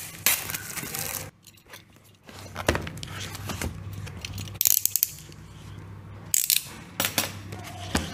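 The cardboard box of an XP-Pen Deco Mini 7 tablet being opened and handled right against a clip-on microphone: scraping, clicking and rustling of the lid and box, with a short quiet pause about a second in and sharp scrapes near the end. A steady low hum runs under it.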